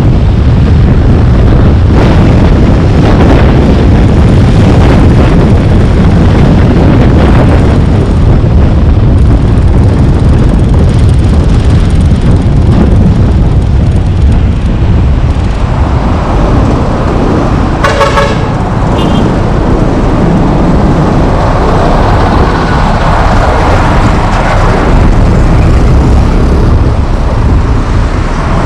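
Steady road noise from a car driving through town streets, with wind rumbling on the microphone. About two-thirds of the way through, a short car horn toot, then a second, shorter beep about a second later.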